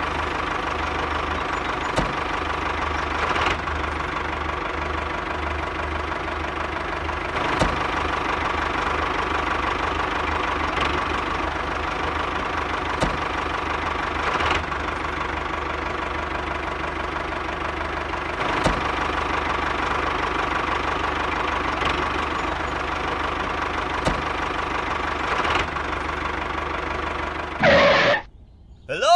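Miniature DIY tractor's motor running steadily while towing a disc harrow, with a faint click every few seconds. The running stops shortly before the end.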